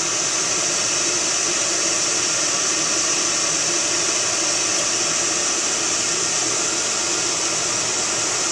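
Beckett oil burner firing on diesel with its flame established: motor, blower and burning spray give a steady rushing hiss over a constant low hum.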